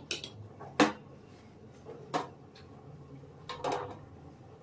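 A steel spoon clinking against a steel cooking pot, a few separate sharp taps with the loudest about a second in. Near the end comes a short cluster of clinks as the spoon is laid on the stainless-steel stove top.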